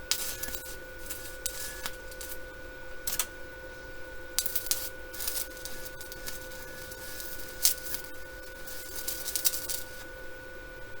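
Stick welding with a flux-coated rod on an inverter welder: the arc crackles and sizzles in short, irregular bursts as a hole in steel is filled with weld.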